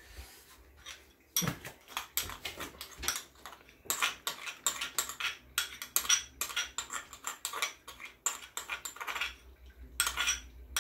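Kitchen utensils and dishes clinking and clattering as they are handled, in an irregular run of sharp clicks starting about a second and a half in, busiest in the middle and again near the end.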